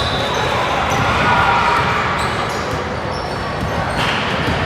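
Basketball game sounds in a gym: a ball bouncing amid indistinct voices, with short high squeaks scattered through.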